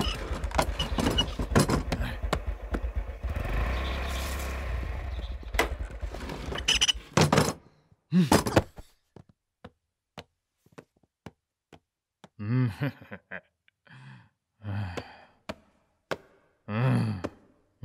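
A motorbike engine runs with a low, steady rumble for about the first seven seconds. It is followed by scattered light taps. From about twelve seconds in come three short wordless vocal sounds.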